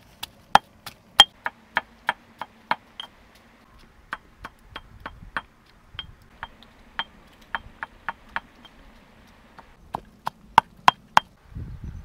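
Stone pestle pounding chillies, garlic and shallots in a stone mortar: sharp knocks about three a second, in three runs with short pauses between.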